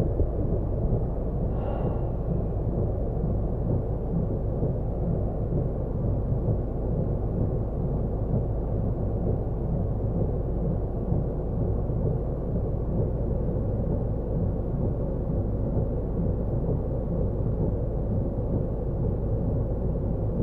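Torrential rain heard from inside a car as a steady, muffled rumble.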